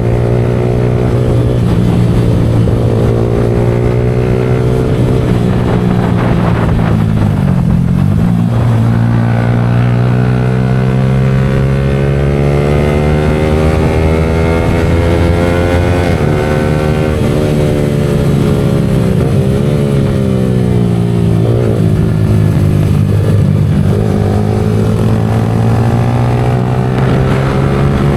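Yamaha R15 V4's single-cylinder engine running through a Leo Vince aftermarket exhaust while riding, its note rising and falling with throttle and gear changes, with a few sharp dips in pitch.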